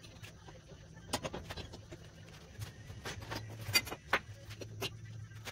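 Shop work noise: scattered clicks and knocks of hand tools and metal parts, over a steady low hum.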